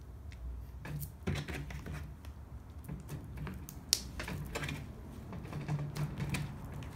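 Yellow glue slime being pressed and kneaded by hand with a block of soft clay to make butter slime: irregular sticky clicks and pops, with one sharper snap about four seconds in.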